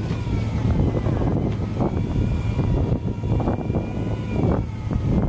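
Fishing boat's engine running with a steady low drone, with faint high whining tones and a rushing noise over it.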